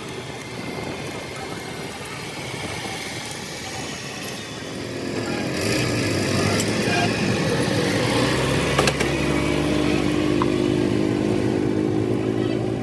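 A motor vehicle engine running with a steady hum that gets louder about halfway through and then holds, with a single sharp click a little later.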